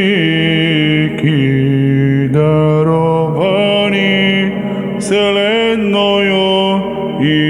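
Orthodox liturgical chanting in Church Slavonic: a voice sings a Matins hymn slowly, holding each note for a second or two with short slides between notes.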